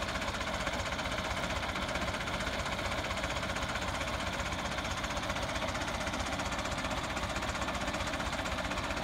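Diesel tractor engine idling steadily with a fast, even knock, the tractor standing still with its seed planter raised.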